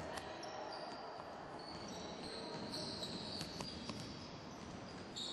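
Basketballs bouncing on a wooden gym floor as they are dribbled, with sneakers giving short, high squeaks on the boards.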